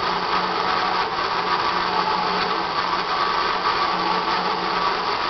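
Knife grinder's electric motor and stone running steadily while sharpening a spiral planer head's knives, a constant hum with an even whirring noise over it.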